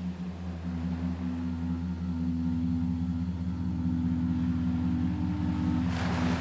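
Ambient electronic drone: steady low sustained tones, one of them pulsing rapidly. Near the end a rushing sound of sea surf swells in over it.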